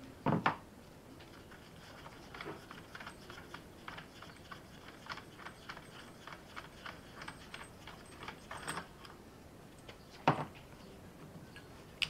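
Light metallic clicks and clinks as the crankshaft pulley is handled and worked off the front of a bare Skoda 105 engine block, with two heavier knocks, one just after the start and one near the end.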